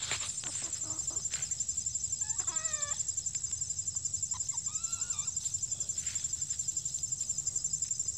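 Hens foraging in dry leaves: one gives a short run of soft calls about two seconds in and another near five seconds, over scattered faint scratches in the litter. Behind them an insect buzzes steadily in a rapid, high-pitched pulse, the loudest sound throughout.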